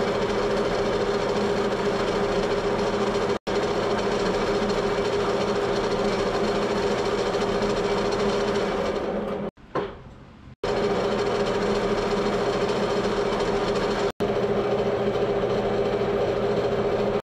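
Small engine lathe running at a steady speed with a constant hum, cutting a shallow oil groove into the back of a small-block Ford cam bearing. The sound dips for about a second roughly ten seconds in, then picks up again.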